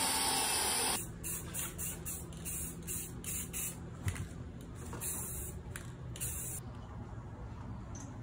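Handheld power tool cutting a flat steel bar, a steady hiss that stops abruptly about a second in. Quieter rustling and a few light clicks follow.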